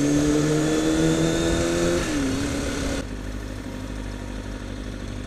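Kawasaki Ninja ZX-6RR's inline-four engine pulling slowly in traffic. Its pitch rises gently, then drops as the throttle closes near two seconds in. About three seconds in the rushing noise falls away sharply, leaving a quieter, low engine note at slow rolling speed.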